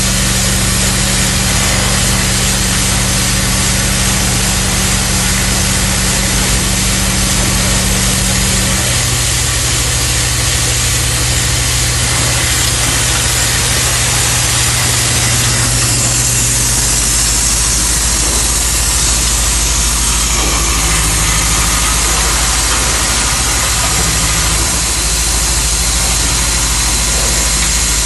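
Automatic odd-form component insertion machine running: a steady mechanical hum under a dense hiss, the low hum changing partway through.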